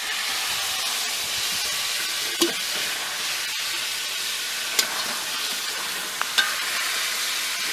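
Pork shoulder searing in hot lard in a metal pan: a steady sizzle, with a few short clinks of the fork against the pan as the meat is worked and turned.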